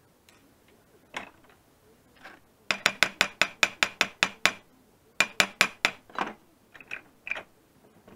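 Hammer striking a nail held on the anvil of a bench vise, flattening its end: two quick runs of sharp metallic blows at about five a second, the first about ten strikes and the second about six, with a few lighter single knocks before and after.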